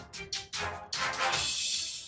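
Background music with a quick percussive beat, about three hits a second, giving way about a second in to a bright, hissing swell like a held cymbal.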